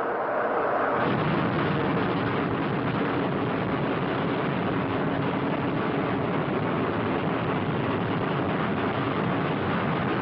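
Me 163 Komet's liquid-fuelled rocket motor running at full thrust on the takeoff run: a loud, steady rushing noise that comes up sharply about a second in and holds.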